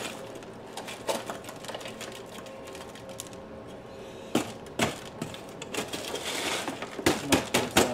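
Irregular clicks, crackles and knocks from bark potting mix and a plastic pot as an orchid's root ball is worked out of the pot, with a quick run of sharp knocks near the end.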